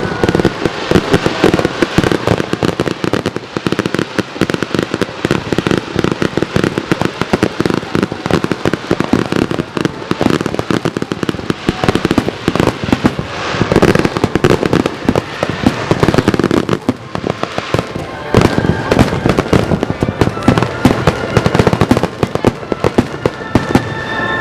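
Aerial fireworks going off in a dense barrage, a rapid, unbroken stream of overlapping bangs and pops.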